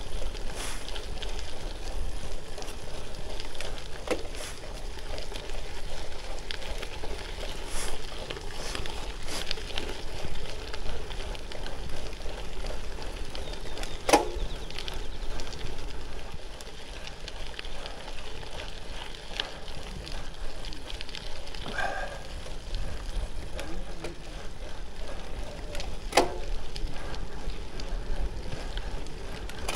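Gravel bike tyres rolling over a loose gravel road, a steady crackle and crunch of stones under the wheels, with two sharp clicks, one about halfway through and one near the end.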